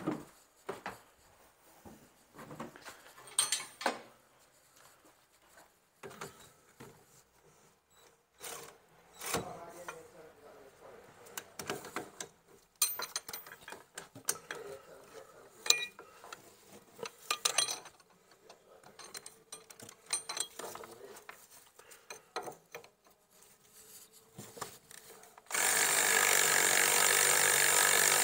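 Scattered clinks and knocks of hand tools on a van's rear brake caliper, then near the end a powered ratchet starts and runs steadily, undoing a brake caliper bolt.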